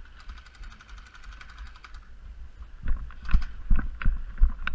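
A fast, even string of faint clicks, typical of an automatic airsoft gun firing at a distance, for about two seconds. From about three seconds in it gives way to louder, irregular close knocks and thumps.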